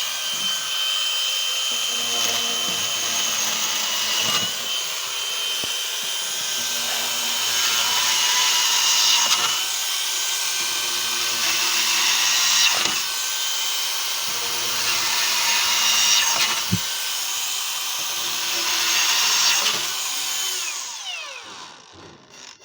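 Electric drill running continuously with a steady high motor whine that shifts slightly as the bit works, then spins down near the end.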